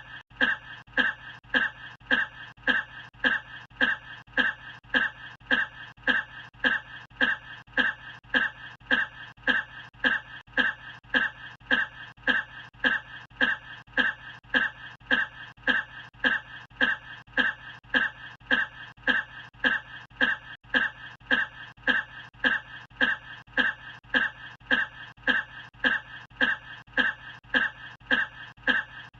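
A single short human cough looped over and over, each repeat identical, a bit under twice a second.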